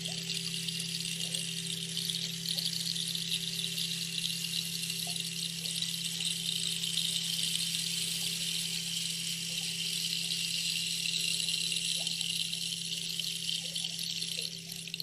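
Steady ambient background: an even high hiss over a low, steady hum, with no bell struck.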